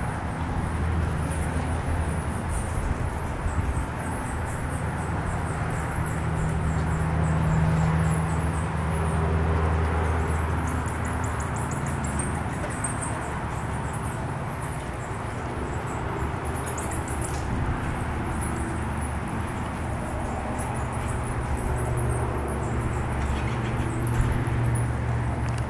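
Steady low motor hum, with faint, rapid high-pitched squeaking chatter from roosting bats throughout.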